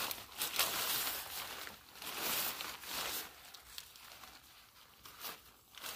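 Rustling and crinkling of tent fabric being unfolded and handled, in irregular bursts that die down for a couple of seconds past the middle, with a short burst near the end.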